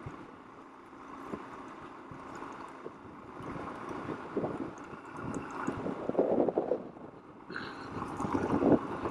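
Suzuki DR-Z400 single-cylinder dual-sport motorcycle riding slowly over a rocky dirt track: the engine runs under wind noise on the microphone, with frequent knocks and rattles as the bike jolts over the rocks, louder in the middle of the stretch.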